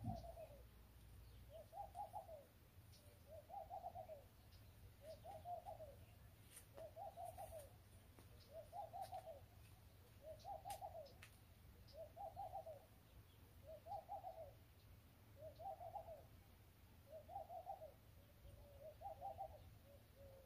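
A bird calling faintly, repeating the same short cooing phrase about every second and a half to two seconds.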